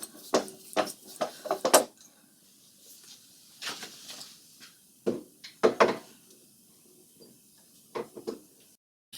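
Metal tools and parts handled at a lathe: a quick run of clinks and knocks in the first two seconds, then a few more scattered through the rest.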